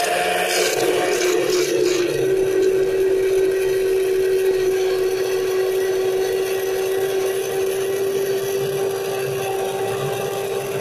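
Electric hand blender running steadily at one constant pitch, its blade whipping milk with coffee and sugar into a froth in a glass jug.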